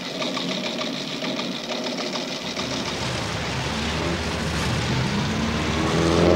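A fast, even mechanical clatter for the first couple of seconds, then a vintage car's engine rumbling as it drives past close by, growing louder to a peak near the end.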